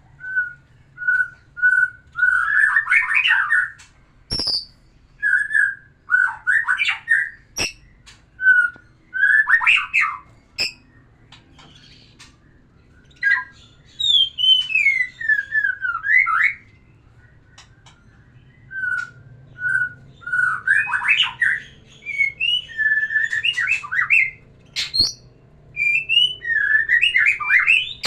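White-rumped shama (murai batu) singing loud phrases, each opening with a few short, even whistled notes and breaking into a rapid, varied warble. There are brief pauses between the phrases and a few sharp clicks.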